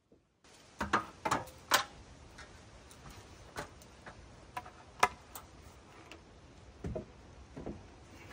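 Scattered sharp clicks and duller wooden knocks from hand work on timber porch framing, a dozen or so irregular strikes with no motor running, over a faint steady hiss. Most come in a cluster about a second in, with a few duller knocks near the end.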